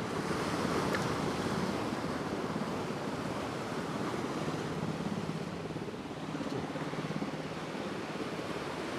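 Rough ocean surf rushing and breaking against the jetty rocks, swelling louder about a second in and again near the end, with wind on the microphone.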